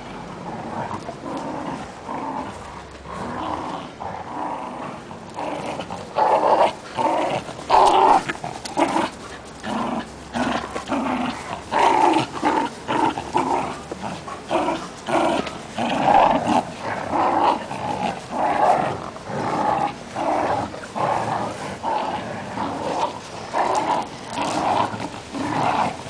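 Dogs growling in short, rough bursts, one or two a second, while they play tug-of-war over a cloth. The bursts start quieter and get louder and more frequent after the first few seconds.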